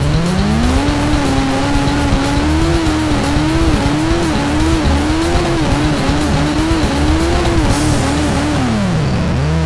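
Sport motorcycle engine at high revs, its note swelling and dipping over and over as the throttle works. Near the end the note drops steeply, then climbs again.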